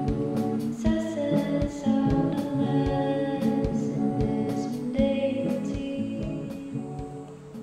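Background song with singing, guitar and a steady beat, fading out near the end.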